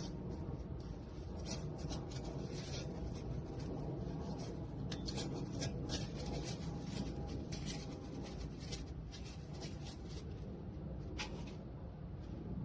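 Small wood fire crackling: scattered, irregular sharp pops and snaps over a steady low rush.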